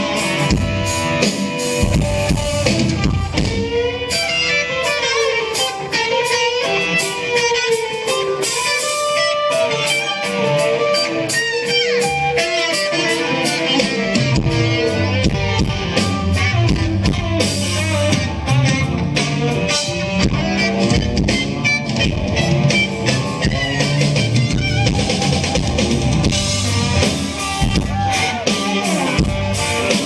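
Live rock band playing an instrumental passage: electric guitar lead lines with bent notes over rhythm guitar, bass guitar and a drum kit.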